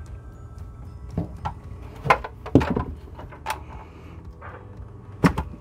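Hard objects being handled, a handful of separate knocks and clunks over a steady low hum, as the plastic humidifier parts and cleaning tools are moved about.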